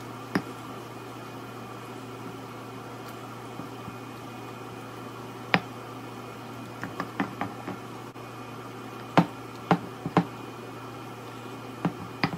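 Stone pestle knocking and grinding in a volcanic-stone molcajete, mashing roasted tomatillos into salsa. Sharp, irregular knocks come in clusters, one about seven seconds in and another about nine to ten seconds in, over a steady low hum.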